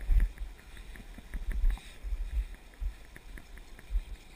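Flowing river water with irregular low rumbling thumps on the microphone and a few faint scattered ticks.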